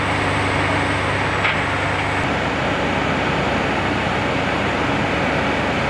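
Heavy flatbed tow truck engine running steadily, with a short click about a second and a half in.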